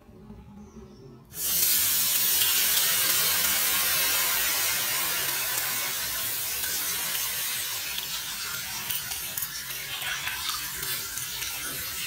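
Water poured in a steady stream into a large metal wok, splashing and hissing. It starts suddenly about a second and a half in and slowly eases off.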